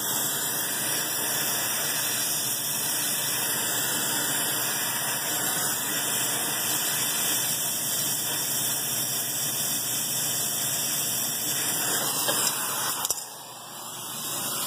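Brazing torch flame hissing steadily as it heats a copper joint at a refrigeration filter drier. The hiss cuts off with a click near the end.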